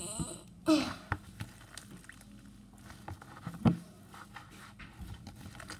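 Slime with shaving foam in it being squished and kneaded by hand: small wet clicks and squelches throughout, with a brief falling squeak just under a second in and a louder squelch about two-thirds of the way through.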